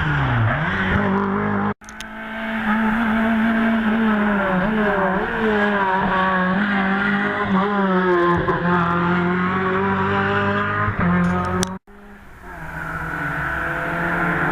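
Race car engines at full throttle on a hill climb, revving up and changing gear, with some tyre squeal. The sound cuts out abruptly about two seconds in and again near the end, each time fading back in.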